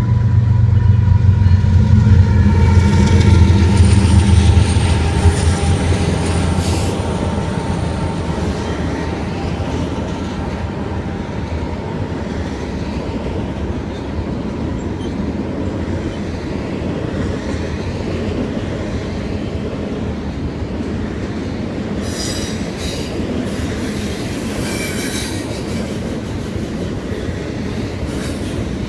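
A train passing close by: the locomotive's engine rumble is loudest in the first few seconds while a horn chord trails off and slightly drops in pitch. The cars then roll past with steady wheel clatter, and the wheels squeal high twice, briefly early on and again for a few seconds near the end.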